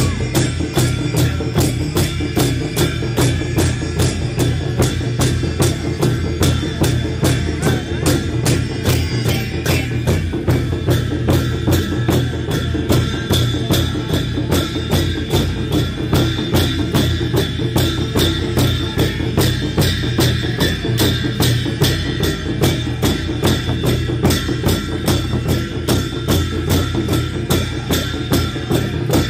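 Sakela dance music: a large double-headed barrel drum (dhol) beating a fast, even rhythm with jingling metal percussion over it.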